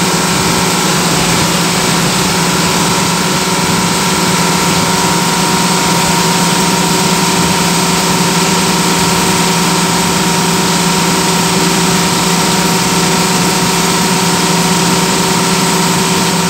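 Steady drone of a bus at cruising speed on the highway, heard from inside the driver's cab: a constant engine hum over road and wind noise.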